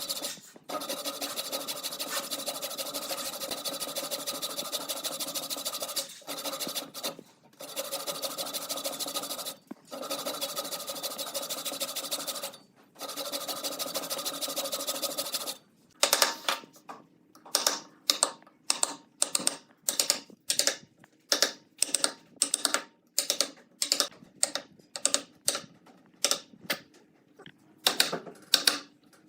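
A woodworking power tool runs in long stretches with a fast, even buzzing rattle, stopping briefly several times. About halfway through it gives way to a quick series of short scraping strokes, about one and a half a second, like hand-sanding or filing of wood.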